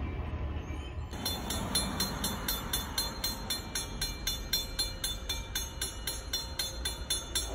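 Railroad grade-crossing warning bell ringing steadily, about three to four strikes a second, with the crossing's flashing lights on and its gates lowering for an approaching CSX train. In the first second a low train rumble is heard, then the bell comes in abruptly.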